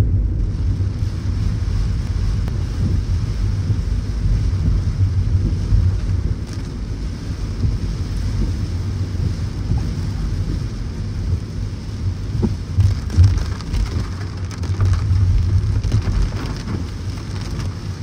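Heavy rain on a car driving through it: a loud, uneven low rumble with a fainter hiss of rain and wet road above it.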